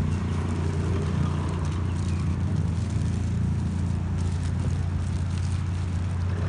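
A car engine idling steadily with a low, even hum, with faint rustles of a plastic bag as food is tipped out of it.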